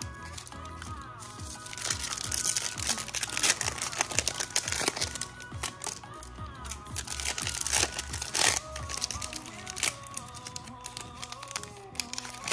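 Foil-lined trading card pack wrappers crinkling and tearing as packs are ripped open by hand, loudest from about two seconds in and again around eight seconds, over background music.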